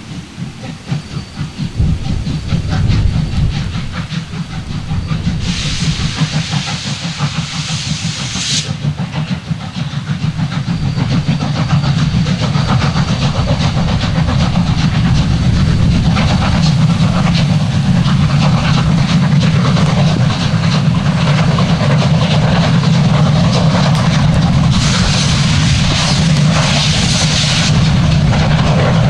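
Steam locomotive running past with a steady low rumble that grows louder over the first dozen seconds. Twice, once a few seconds in and again near the end, a burst of hissing steam lasting about three seconds rides over it.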